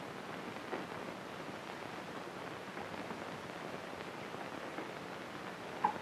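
Steady hiss with faint crackle from the soundtrack of a 1931 early sound film, with a brief blip near the end.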